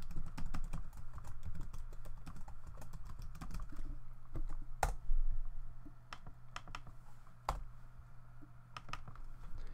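Typing on a computer keyboard: quick runs of keystrokes in the first half, thinning to scattered clicks later, with two louder clicks about five and seven and a half seconds in, over a steady low hum.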